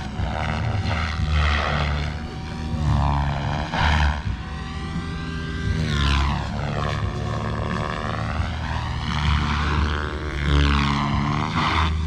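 SAB Kraken 580 electric radio-controlled helicopter in flight, its rotor and motor whine rising and falling in pitch as it sweeps past and manoeuvres.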